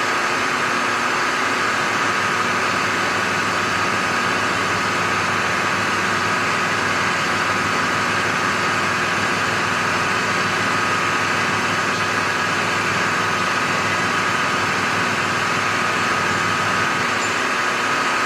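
Milling machine running steadily, its end mill taking a light cut along the edge of a metal block as the table feeds it past, to make a small flat at the bottom of a V-way. A constant machine whine with a few held tones and no breaks.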